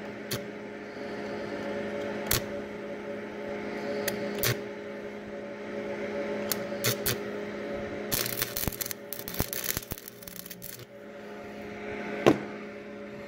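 A rag rubbed against a rusty steel pipe stub, with scattered small clicks and knocks and a burst of scratchy rubbing about eight seconds in, over a steady electrical hum.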